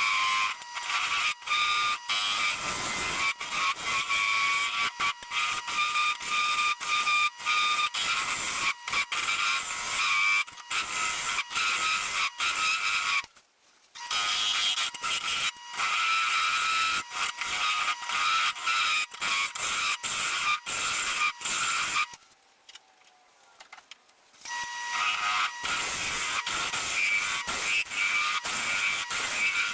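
A wood lathe runs with a steady whine while a turning tool scrapes and cuts the spinning green cherry wood. The sound drops out twice, briefly about halfway through and for about two seconds later on.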